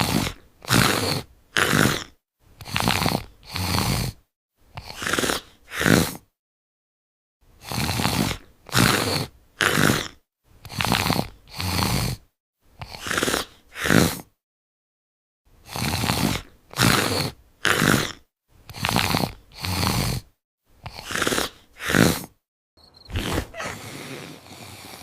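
Loud, exaggerated cartoon snoring: rough breaths, each under a second, in runs of two to four with short pauses between. Near the end the snores stop and a steady, quieter hiss takes over.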